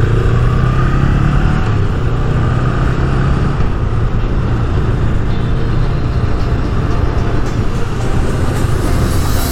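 Honda CMX500 Rebel's parallel-twin engine picking up speed, its pitch rising over the first couple of seconds, then running steadily at road speed.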